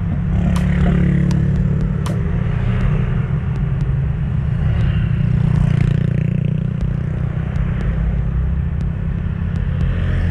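Motorcycle engine idling close by, a steady low rumble. Other traffic passes on the road, swelling up about halfway through.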